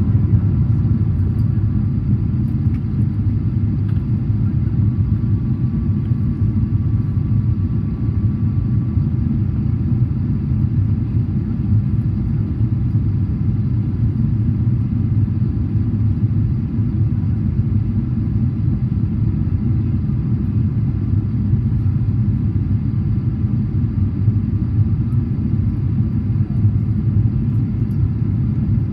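Steady low rumble of engine and airflow noise inside the cabin of a Boeing 777-300ER on approach with its flaps extended, heard from a window seat behind the wing. The twin GE90 engines are running.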